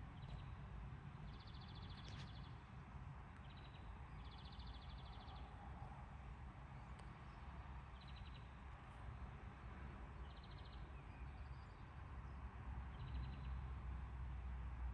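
Small birds calling in short, high, rapid trills, about six separate bursts of up to a second each, over a steady low rumble.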